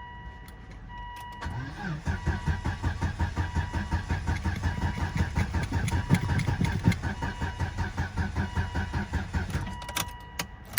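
A 2001 Volvo S80's engine being cranked by its starter for about eight seconds with a fast, even rhythm, turning over but never catching. The car won't start despite the newly programmed key, with the battery and jump box running down.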